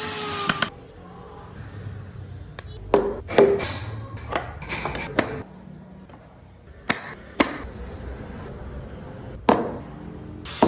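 A power tool running stops within the first second. Then come scattered knocks and taps of hand tools and wooden pieces worked on a bench, about eight of them at uneven intervals.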